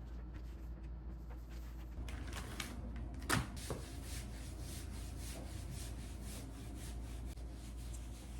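Repeated rubbing or scraping strokes, about two to three a second, starting about two seconds in, with one sharp knock a little after three seconds, over a low steady hum.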